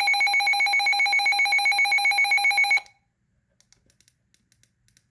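Midland HH54 weather radio's alert siren on test: a loud, shrill alarm tone that pulses rapidly, about eight times a second. It cuts off sharply a little under three seconds in, leaving only faint clicks.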